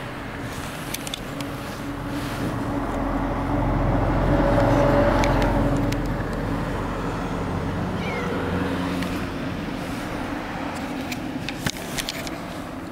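Rubbing and knocking on a handheld camera as a cat pushes against it, over a low motor hum that swells in the middle and eases off.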